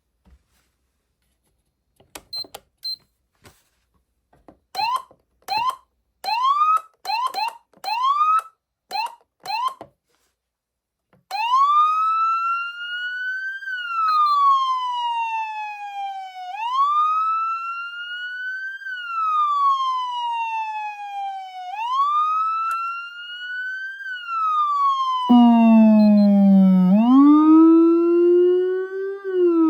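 Federal Signal Smart Siren SM siren amplifier: a few faint control beeps, then a run of short rising siren chirps, then the wail tone sweeping slowly up and down about every five seconds. Near the end the Rumbler low-frequency siren joins in with a deep, loud copy of the wail.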